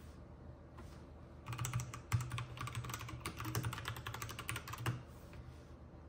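Fast typing on an RK61 mechanical keyboard, a dense run of key clicks and clacks that starts about a second and a half in and stops about a second before the end.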